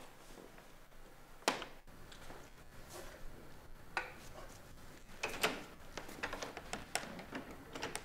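A wooden door opening and closing with footsteps: a sharp knock of the door about one and a half seconds in, another cluster of knocks and clicks around five seconds in, and light taps of steps between them.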